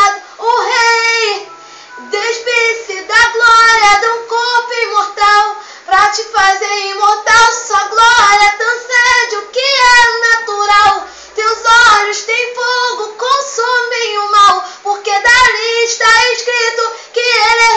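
A girl singing solo and unaccompanied: a high voice in long held phrases with short breaths between them.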